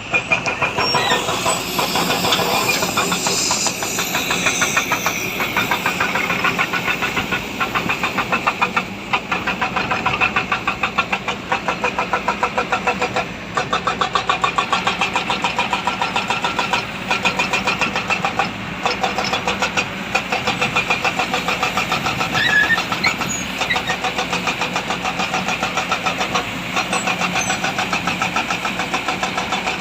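Heavy diesel engine of a dump truck or excavator running under load, with a fast, even throb.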